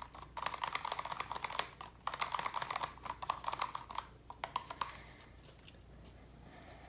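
Rapid light clicking and scraping from a plastic cup of resin and acrylic paint being stirred and handled in gloved hands, dying down about five seconds in.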